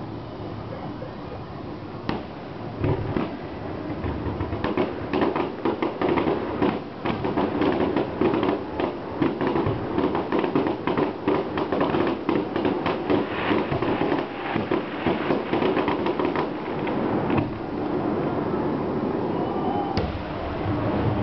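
Fireworks going off: a dense barrage of rapid bangs and crackles from about four seconds in, thinning out after about seventeen seconds.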